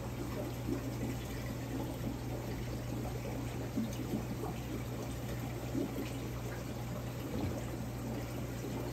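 Circulating water in a large overflow aquarium, running and splashing steadily with small irregular flickers, over a steady low hum.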